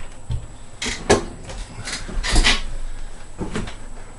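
A handful of knocks and scrapes as a Waldorf Blofeld desktop synthesizer is turned over and set down on a wooden desk, the loudest about halfway through.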